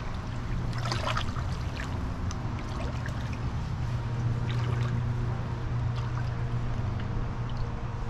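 Feet wading through shallow river water: a few short splashes and sloshes as the legs move, over a steady low rumble.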